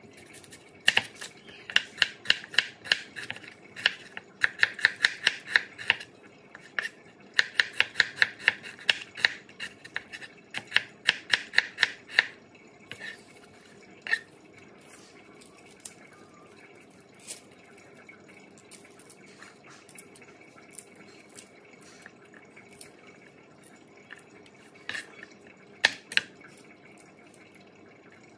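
Kitchen knife slicing an onion on a plastic cutting board: quick taps of the blade on the board, several a second in runs over the first twelve seconds or so, then only a few scattered knocks while garlic cloves are pulled apart.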